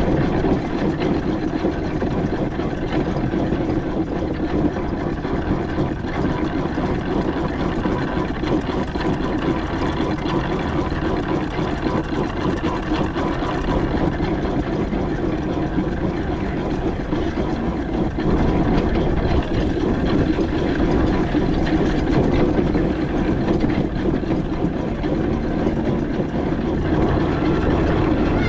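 A 4-inch-scale McLaren steam traction engine running steadily while under way, with a continuous mechanical running noise.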